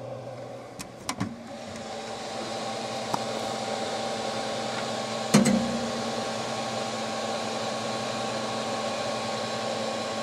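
3D printer running, a steady mechanical whir with humming tones from its motors and fans, growing louder over the first couple of seconds. A few sharp knocks: two about a second in and a louder one about five and a half seconds in.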